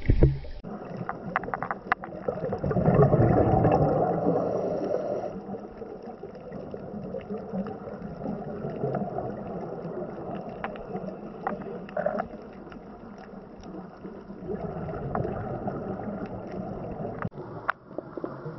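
Underwater sound picked up by the camera: muffled water noise with gurgling bubbles that swell louder for a couple of seconds near the start, with scattered sharp clicks throughout.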